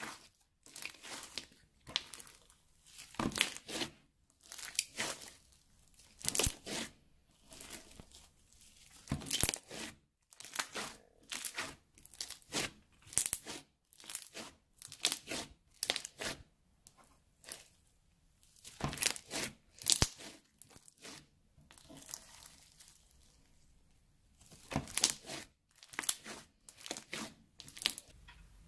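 Crunchy slime full of small beads being kneaded, folded and stretched by hand, crackling and popping in repeated bursts roughly a second apart, with a quieter spell a little past two-thirds of the way through.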